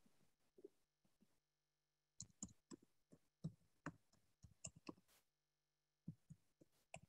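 Faint, irregular clicks and taps, several a second, in two runs: one from about two seconds in and a shorter one near the end.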